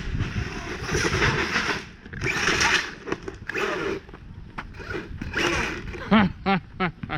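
Electric RC car with a brushless motor driven in short spurts, motor whirring and tyres scrabbling over the ground in about four bursts of acceleration. A voice is heard near the end.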